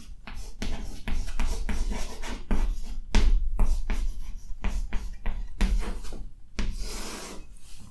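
Chalk scratching and tapping on a chalkboard as a word is written out in quick strokes, with a longer scrape near the end.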